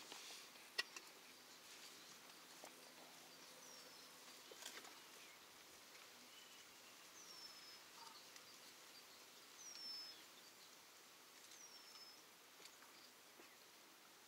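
Near silence with a bird calling faintly: a short high whistle that falls in pitch, heard four times. There is a single sharp click just under a second in.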